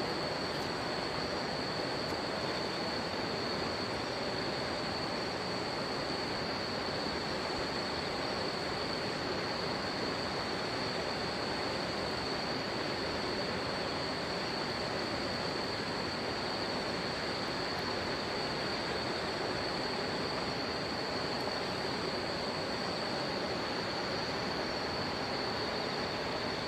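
Steady rush of river water with a continuous high-pitched chirring of insects over it, and a few faint crackles from a campfire.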